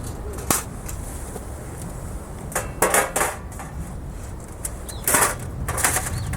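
Stainless steel fire grill parts being handled: short clinks, knocks and scrapes of metal, coming in a few small clusters, the busiest about three seconds in and again about five seconds in.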